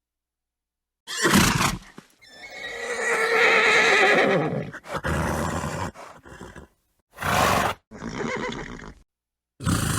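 A horse whinnying: a long, quavering neigh starting about two seconds in, set between several short, noisy snorts, with abrupt silent gaps between the sounds.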